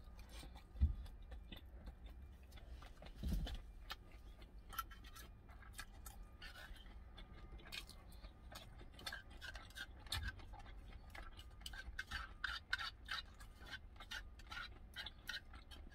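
Metal spoon clicking and scraping against a small steel tuna can and a plastic rice tub while eating, many light clicks that grow thicker near the end. Two dull thumps come in the first few seconds.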